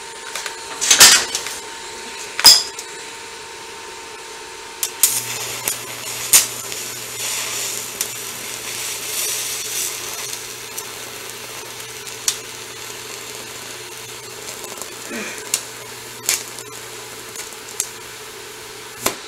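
TIG welding arc on steel: a steady low hum with a faint hiss and scattered sharp ticks, striking up about five seconds in and running until just before the end. Before it, two sharp metallic knocks.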